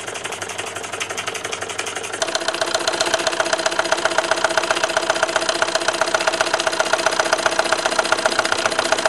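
Large Bing toy horizontal steam engine running freely on live steam, making a rapid, even beat. It grows louder about two seconds in, and a steady tone joins the beat.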